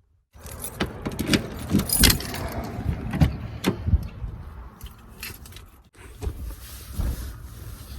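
Keys jangling with a run of clicks and knocks from things being handled, plus rustling.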